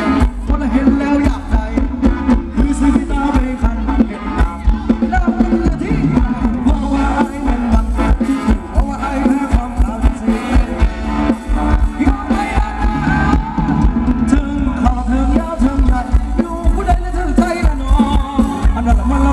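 Live band playing Thai ramwong dance music with a steady, driving beat.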